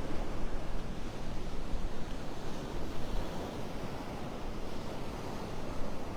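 Surf washing steadily onto a Gulf beach, with wind buffeting the microphone as an uneven low rumble.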